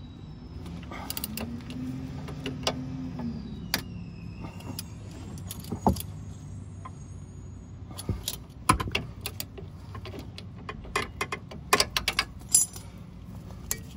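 Irregular metallic clicks and clinks of a wrench working the nut on a car's stabilizer link as it is tightened, with a cluster of quick clicks near the end. A steady low hum lies underneath, rising and falling in pitch for a moment early on.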